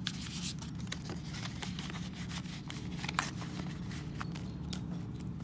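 Paper bills being handled and slid into a cash envelope: a quick, irregular run of small rustles and ticks over a low steady hum.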